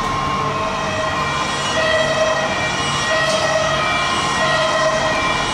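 Two-tone emergency-vehicle siren, steadily alternating between a low and a high note about every two-thirds of a second.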